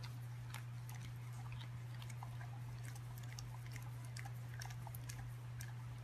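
Chewing-like noise: irregular small clicks and crunches, several a second, over a steady low hum.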